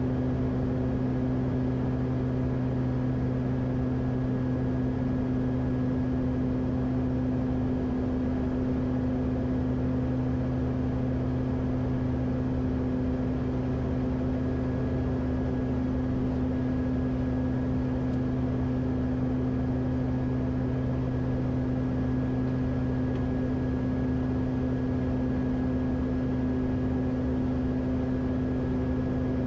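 Steady drone of a Beechcraft King Air's twin PT6A turboprop engines and propellers, heard inside the cockpit: an even hum with several held tones that doesn't change.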